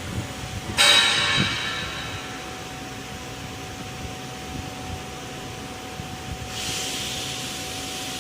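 A sharp metallic clang about a second in that rings with several tones and fades over about a second, over a steady machine hum. A burst of hiss starts near the end and slowly fades.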